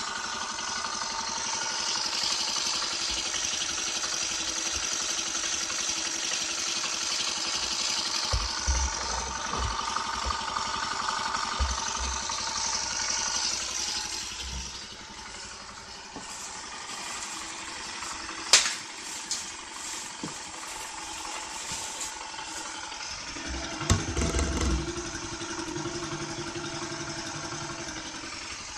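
Honda Super Cub's single-cylinder four-stroke engine idling steadily on its first run after the engine was taken apart and inspected inside. It gets a little quieter from about halfway, with a single sharp click about 18 seconds in.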